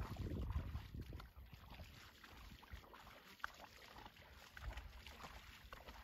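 Faint outdoor ambience. A low rumble of wind on the microphone fades after about a second, leaving a quiet background with a few scattered short high ticks.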